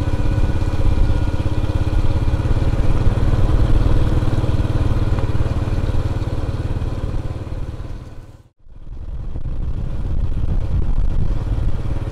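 Motor vehicle engine running steadily with a deep, even rumble. The sound fades out briefly about eight and a half seconds in, then returns.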